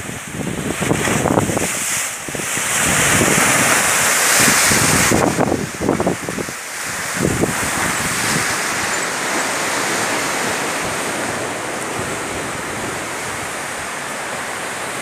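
Sea waves breaking and washing over rocks, surging loudest a few seconds in, then settling to a steady rush of foam. Wind buffets the microphone in the first half.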